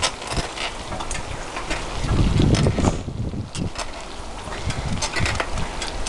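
Bicycle rolling along a paved trail, the bike squeaking and clicking in many short bursts, with wind buffeting the microphone in low rumbling gusts, strongest about two to three seconds in.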